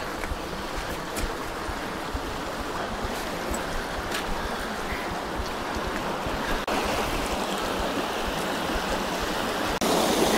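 Fast-flowing creek water rushing and splashing over rocks in a small cascade, a steady rush that gets louder in two sudden steps, about two-thirds through and near the end.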